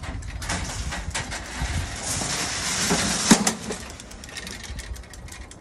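Steel-mesh hitch cargo carrier and ramp rattling and clanking as a push mower is moved on it. The rattle builds for about three seconds and ends in one sharp metal clank.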